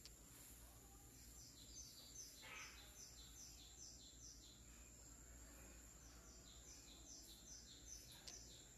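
Faint bird chirping in two runs of quick, high, falling chirps, about five a second, over quiet room tone with a steady high whine.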